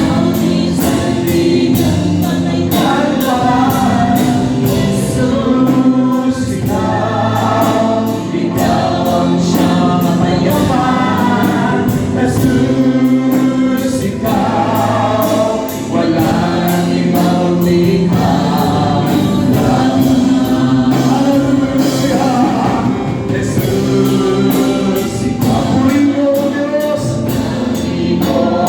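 Congregation singing a slow Tagalog worship song with band accompaniment and a steady beat.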